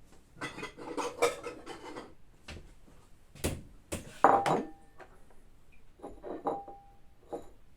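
Rough-chopped onion being scraped off a wooden cutting board into a bowl: a stretch of scraping and clattering, then several separate sharp knocks of knife and bowl, two of which leave a brief ringing tone.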